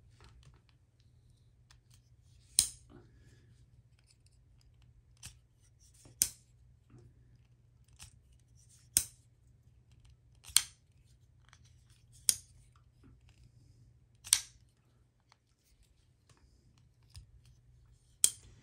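Chris Reeve Large Sebenza 31 folding knife worked open and shut again and again, its steel blade snapping into place with sharp metallic clicks, about seven loud ones every couple of seconds with fainter clicks between. The pivot screw has just been backed off a little from fully tight, and the action is being tested.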